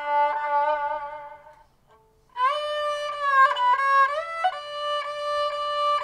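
Politiki lyra, the pear-shaped, three-stringed bowed lyra of Constantinople, being bowed. A held note fades out about a second and a half in, and after a brief pause a new phrase begins: sliding melody notes over a steady lower note.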